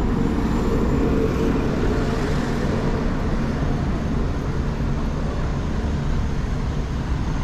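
City road traffic: a steady rumble of passing vehicles, with a faint engine hum in the first few seconds.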